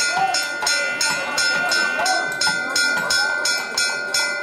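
Temple bell rung rapidly and repeatedly, about five metallic strikes a second, over a steady ringing tone.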